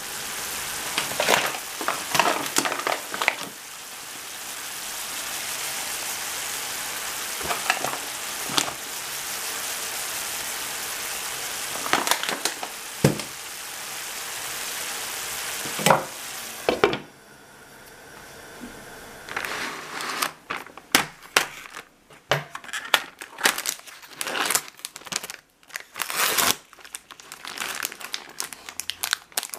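Broccoli and cauliflower sizzling steadily in a frying pan, with a few sharp knocks of utensils or the lid, for roughly the first seventeen seconds. After a short lull, plastic film crinkles as it is peeled off a plastic tray of raw chicken thighs.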